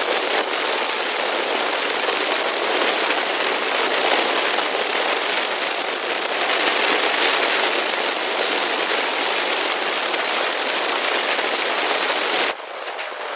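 Rushing wind on the microphone of a moving motorcycle: a steady, dense hiss with no clear engine note, dropping suddenly near the end.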